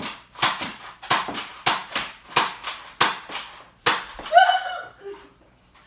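Nerf blasters firing foam darts in quick succession: about a dozen sharp snaps, roughly three a second, then a short shout near the end.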